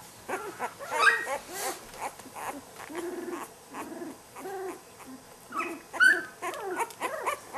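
A newborn golden retriever puppy whimpering and squealing in a run of short cries, about two a second, with one sharper, higher squeal about six seconds in. It is the pup's protest at being handled and put on a cold surface during early stimulation exercises.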